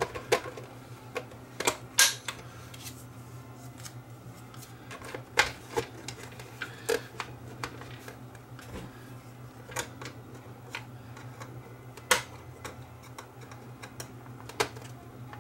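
Scattered plastic clicks and taps as the keypad faceplate and housing parts of a vintage push-button desk telephone are handled and pressed into place, about a dozen sharp ones spread irregularly, the loudest about two seconds in and again near twelve seconds. A steady low hum runs underneath.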